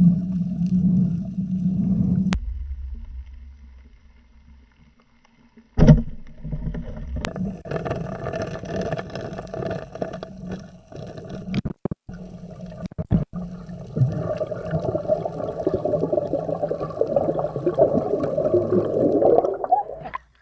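Underwater sound as heard through a diver's camera housing: a muffled, steady low hum with water noise. It breaks off abruptly several times, with one sharp, loud knock about six seconds in.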